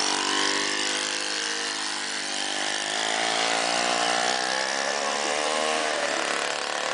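Small engine running steadily, its pitch wavering slightly up and down, with a steady hiss over it.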